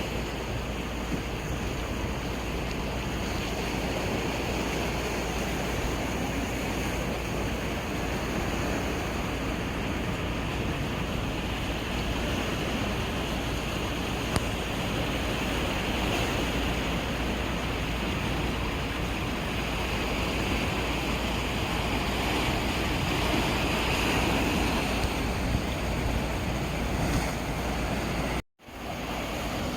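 Sea waves washing against the shore: a steady rush of surf that swells and eases, with a brief dropout near the end.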